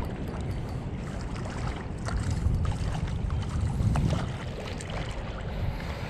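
Wind buffeting the microphone: an unsteady low rumble that swells and fades, with scattered faint ticks above it.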